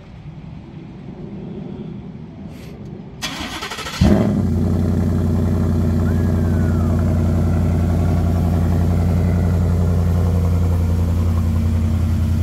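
Ford F-150's 5.0 Coyote V8, stock apart from a cold air intake, cranking on the starter for under a second about three seconds in. It catches with a brief rev flare and settles into a steady idle.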